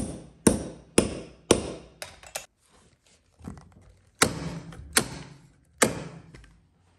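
Sharp tool strikes fastening a carpet runner to wooden stairs: about two strikes a second for the first two seconds, a few lighter taps, then three more strikes a little under a second apart, each ringing briefly in the wooden stair.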